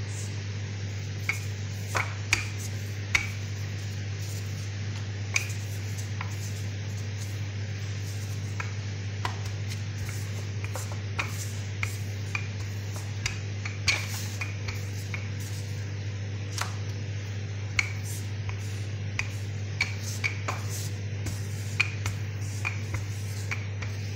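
Scattered light knocks and clicks, a few with a short ring, from a wooden rolling pin and gloved hands working bread dough on a wooden cutting board, over a steady low hum.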